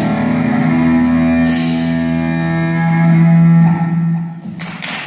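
Guitar band music ending on a held chord that rings out and dies away about four and a half seconds in, then a burst of noise near the end.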